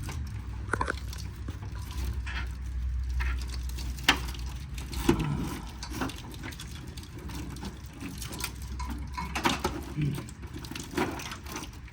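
Scattered clicks and knocks of hands and small parts handling an engine wiring harness, over a steady low hum. The sharpest knocks come about four and five seconds in.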